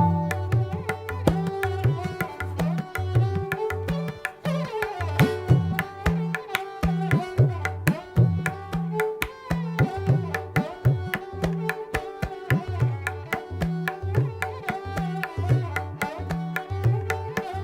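Hindustani classical music: tabla playing fast, dense strokes over a repeating deep bass pattern, with a sarangi holding and sliding melodic notes.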